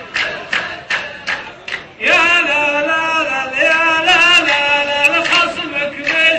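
Sharp rhythmic beats, about three a second, then about two seconds in a male voice comes in singing a long-held, slowly wavering line of a Gulf mawwal.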